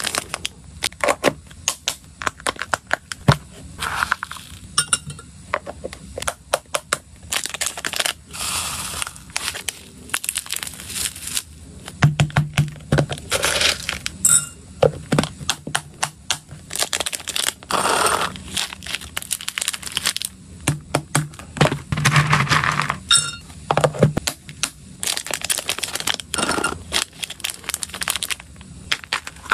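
Small clear plastic snack packets crinkling and rustling as they are handled, with dry pellet food scooped with a spoon and clicking and rattling in a plastic tub. The sound is a dense run of sharp crackles and clicks, busier in a few stretches.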